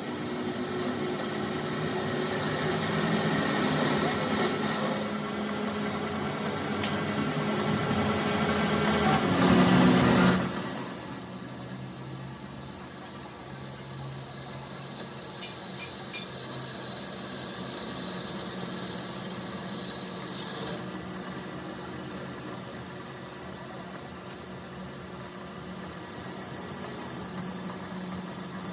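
A steady high-pitched squeal over a low machine hum. It breaks off and restarts abruptly about ten seconds in and again around twenty-one seconds in.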